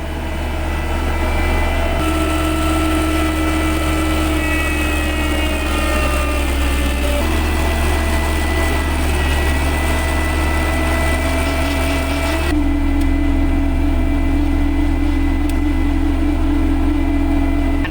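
Heavy diesel construction machinery running hard: a steady low engine drone with a high whine over it, the pitch and mix shifting abruptly three times.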